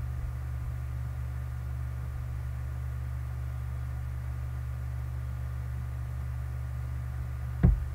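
Steady low electrical hum with a faint hiss and no other sound, the background noise picked up by the recording microphone. Near the end a brief voice begins.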